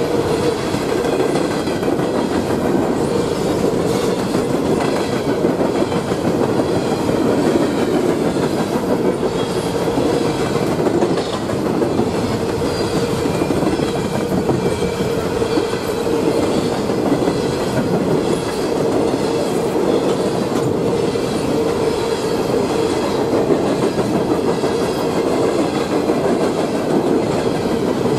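A Norfolk Southern freight train of open-top coal hopper cars rolling past, a steady rumble with the clickety-clack of wheels over rail joints. Faint high-pitched ringing from the wheels wavers over the top.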